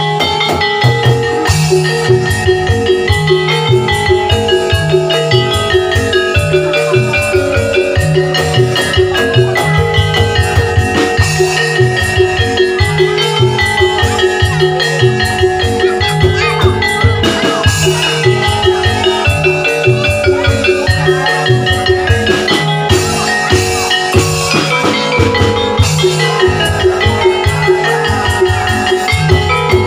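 Oklik (tongklek) ensemble playing a koplo-style tune: tuned bamboo percussion carrying a rapid melody over a steady low drum beat, with struck bronze gongs.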